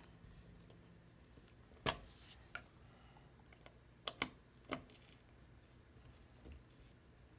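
Sharp clicks and knocks of a plastic surfboard fin being worked into its FCS fin box: five of them between about two and five seconds in, the first the loudest, with quiet room tone between.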